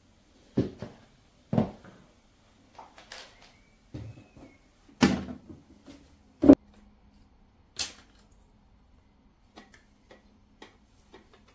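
Plastic cleaning tools being handled: about five sharp knocks and clacks at uneven intervals with lighter taps between, the loudest a little past the middle.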